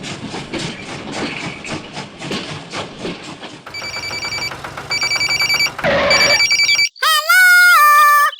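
A rapid mechanical rattling clatter, then a loud electronic ringing, like a telephone bell, in on-off bursts a little after halfway. Near the end comes a loud synthetic tone that steps down in pitch.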